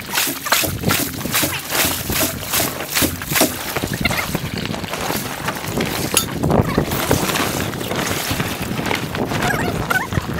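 A vinyl pool liner scrubbed with a broom and handled, played at four times speed: quick, even brushing strokes, about four a second, for the first few seconds, then jumbled rustling and scraping.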